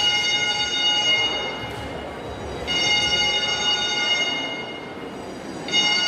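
Building fire alarm horn sounding in long steady blasts of about two seconds each, separated by short gaps of under a second, with the next blast starting near the end.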